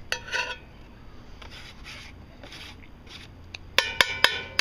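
Metal utensils clinking and scraping against a cast iron pan and a plate as a sandwich is slid into the pan: one ringing clink right at the start, light scrapes through the middle, then a quick run of sharp ringing taps about a second before the end.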